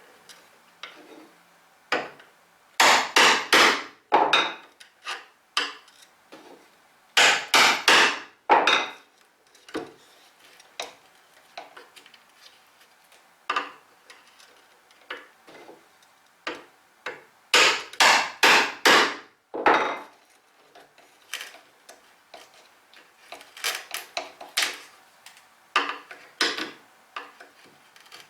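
A mortise chisel is driven into pine with a hammer. It comes in bursts of about five sharp, ringing blows, three times, with lighter knocks and taps in between.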